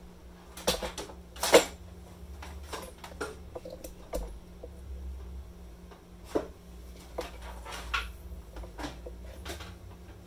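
Irregular clicks, taps and knocks from a laptop and small tools being handled on a desk mat, the loudest a sharp knock about a second and a half in. A faint steady hum runs underneath.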